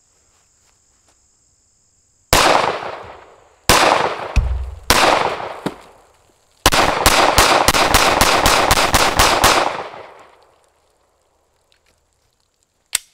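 Pistol firing live rounds: three single shots about a second apart, then a rapid string of about a dozen shots, roughly four a second, each with a trailing echo. A short sharp click comes near the end.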